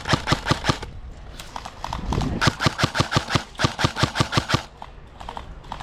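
Airsoft rifle firing rapid bursts, about eight shots a second: a short burst at the start and a longer one of about two seconds in the middle, with a few scattered shots between.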